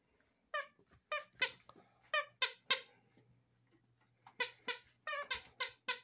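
Plush squeaky dog toy squeezed in a beagle's mouth, giving a quick run of about six short, high squeaks, then after a pause about six more.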